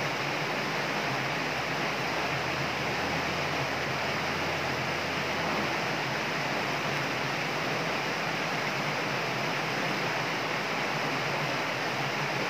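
Steady rush of shallow water spilling over a low concrete step, an even, unbroken splashing.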